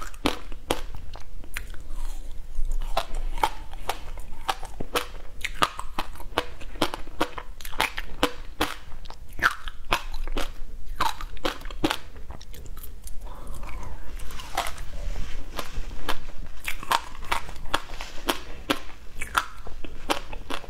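Close-miked crunching of frozen passion fruit ice: chunks of ice are bitten off and chewed, giving many sharp crunches and cracks, a few a second.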